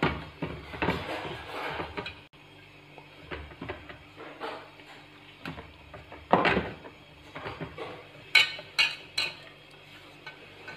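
Hands kneading crumbly pearl-millet (bajra) flour with warm water in a stainless steel plate: fingers rubbing and scraping the dough against the metal in irregular strokes. Three or four sharp clinks against the steel come quickly one after another a little past eight seconds in.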